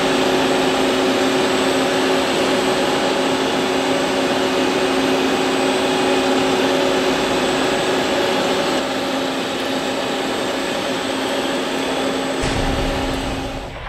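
Goodway GS Series CNC lathe machining a steel crankshaft with a ball-end mill on its live-tool turret: a loud, steady machine whine with hum and hiss. Near the end the whine stops and a lower rumble takes over.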